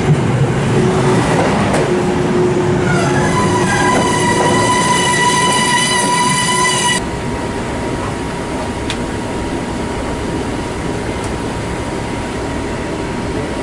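Kintetsu train running at the station platform, with a steady shrill squeal from about three seconds in that cuts off suddenly a few seconds later.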